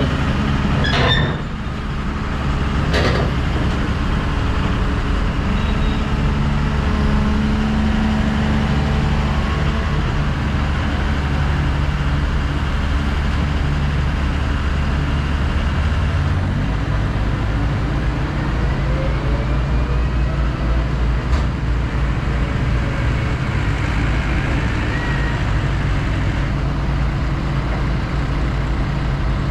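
Heavy diesel engine of a Hyundai R300LC crawler excavator idling steadily; its low note changes about halfway through. A couple of sharp knocks in the first few seconds.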